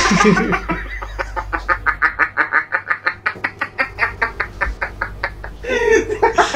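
A man laughing hard: a long, rapid run of short laugh pulses, about six a second, with a louder, drawn-out laugh near the end.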